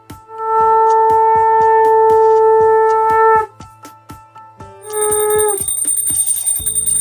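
A conch shell blown in a long steady blast of about three seconds that dips in pitch as it ends, then a short blast about five seconds in and another starting near the end. Under it a brass puja hand bell is rung steadily, about three strokes a second.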